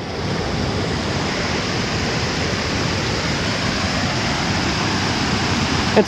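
Tioronda Falls on Fishkill Creek: a steady rush of water pouring over the falls and churning through the rocks below.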